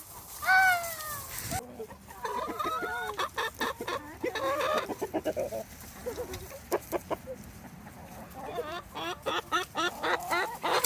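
Backyard hens clucking, with many short calls from several birds overlapping.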